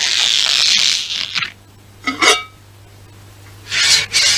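Cartoon washing-up sound effects: a sustained hiss in the first second, a short squeak about two seconds in, then a spatula scraping a frying pan near the end.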